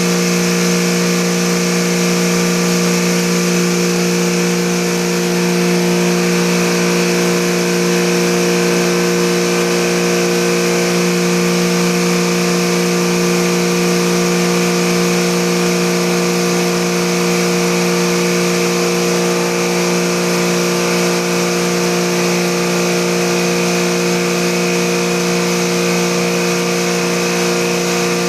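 Motor of an air-conditioner cleaning machine running steadily: a constant hum with a hiss over it, unchanging throughout.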